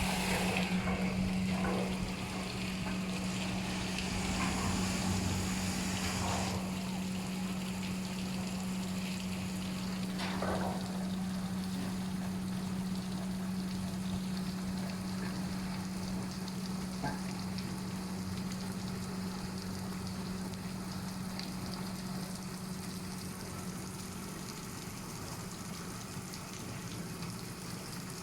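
Rollover bus and truck washing machine running: a steady hum under a continuous hiss of spraying water.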